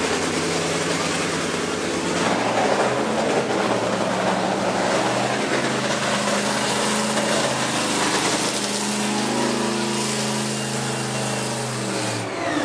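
A nitromethane-burning supercharged V8 in John Force's drag-racing Funny Car running steadily during a pit warm-up. Near the end its pitch drops and it cuts off.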